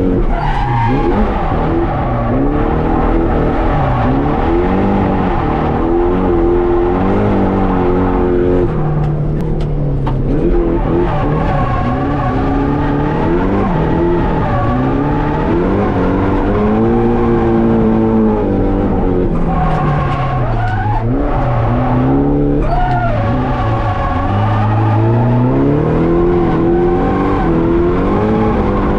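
Drift car engines revving up and easing off again and again, the pitch rising and falling throughout, with skidding, squealing tyres.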